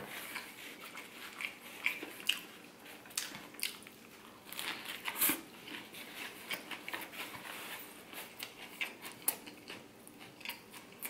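Close-miked eating sounds: biting into a fried oyster po' boy on crusty French bread, with irregular crackly crunches and chewing. The loudest crunch comes about five seconds in.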